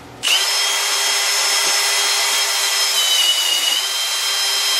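Electric drill running at speed, driving the input shaft of a Tuff Torq K46 hydrostatic transaxle while the transaxle's brake is tested. It starts suddenly just after the beginning and whines steadily, its pitch sagging briefly about three seconds in.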